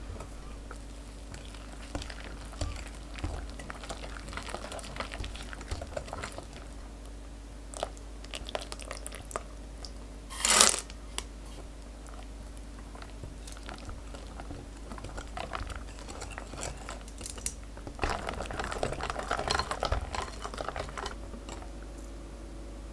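Wire whisk stirring thick, wet chocolate batter in a glass bowl: soft sloshing and scraping with small clicks of the wires against the glass. About ten seconds in, a short, loud rattle as pieces of dark chocolate are tipped in; the stirring then picks up again and is busiest near the end.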